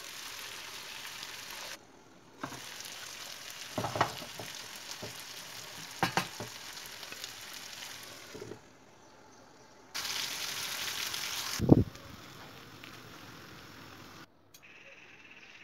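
Eggs, diced peppers and melted grated cheese sizzling in a frying pan, in stretches that cut off abruptly and resume. A few knocks come as the glass lid is lifted off, the loudest and sharpest about twelve seconds in.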